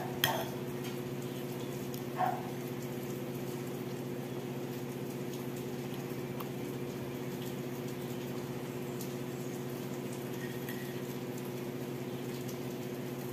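Steady low electrical hum made of several even, unchanging tones, with a brief click at the start and another small sound about two seconds in.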